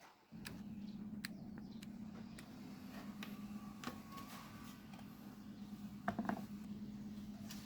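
A small electric motor switched on, humming steadily at a low pitch, with scattered light clicks and rattles over it and a short burst of clicks about six seconds in.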